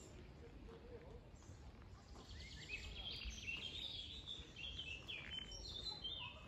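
A small songbird singing a string of fast trilled phrases, starting about two seconds in, over low steady background noise.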